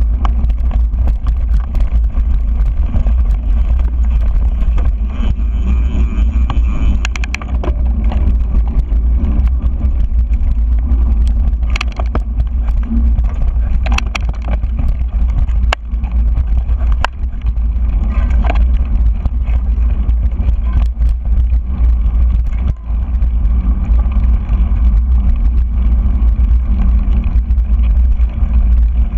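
Steady wind rumble on a GoPro's microphone during a mountain bike ride on dirt singletrack. Frequent clicks and knocks from the bike rattling over the rough trail.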